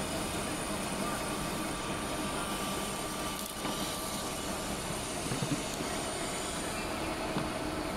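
Metal lathe running under automatic feed, its cutting tool working through a bronze workpiece: a steady mechanical running noise with a faint thin whine from about one to three and a half seconds in, and a few light knocks around the middle.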